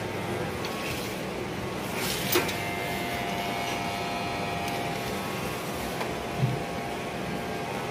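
Corded electric pet hair clipper running with a steady buzz while shaving a dog's matted coat. A sharp click sounds about two seconds in and a short dull thump about six seconds in.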